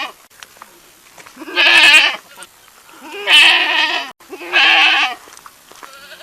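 A goat bleating three times, each call about a second long with a wavering pitch, separated by short pauses.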